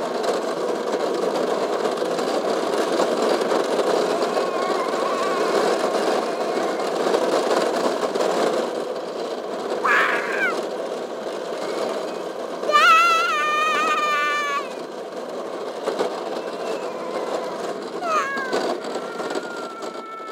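Go-kart riding along, its motor and wheels giving a steady rushing noise that grows quieter near the end. A short falling squeak comes about halfway, then a high wavering cry lasting about two seconds, the loudest sound here, and another short squeak near the end.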